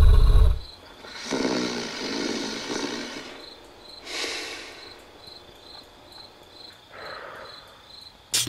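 Rough, growl-like sleep noises, snoring and grunting, in several separate bursts. The first is deep and loud. A faint regular ticking runs underneath about twice a second, and there are sharp clicks near the end.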